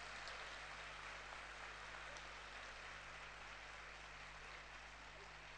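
Faint audience applause, an even patter of many hands clapping that slowly dies down.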